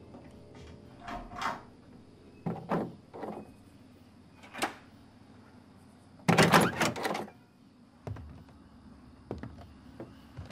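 Footsteps approaching a door, then, about six seconds in, a doorknob and latch rattling loudly as the door is opened. A few fainter knocks follow.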